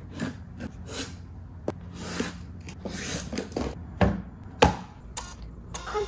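Plastic food storage containers handled on a wooden board: a string of light knocks and rubbing as they are set down and slid into place. The two loudest knocks come about four and four and a half seconds in.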